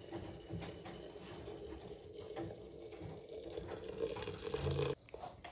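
Water poured from an electric kettle into a glass teapot through a metal mesh tea infuser, running steadily and stopping abruptly near the end.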